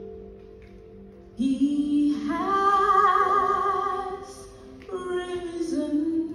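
Music: a woman singing a slow melody over soft instrumental accompaniment. Her voice enters about a second and a half in and holds a long wavering note before starting a new phrase near the end.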